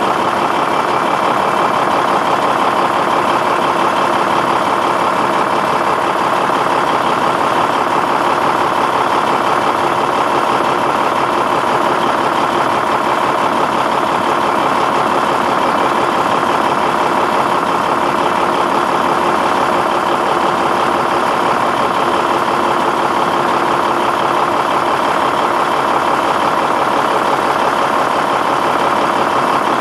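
Diesel engine of a 1994 International 2574 dump truck running steadily while it drives the hydraulic hoist that raises the dump body.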